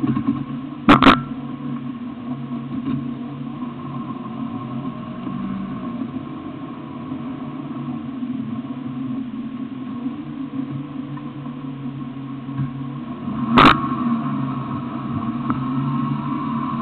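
Off-road 4x4 vehicle's engine running steadily under way over rough sandy ground. Sharp knocks cut through it, a pair about a second in and another near the end.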